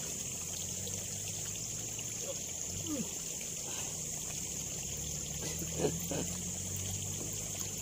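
Water trickling steadily in a small, shallow ditch, with a few faint brief sounds over the top.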